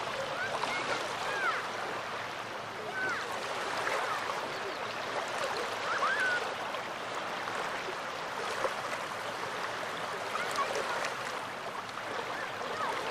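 Small Baltic Sea waves lapping steadily at the shore of the Gulf of Finland. Short high calls cut in over it every second or two.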